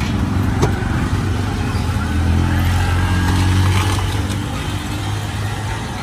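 Engine running steadily, a low hum that swells louder about two seconds in and eases off after about four seconds, with a few faint clicks.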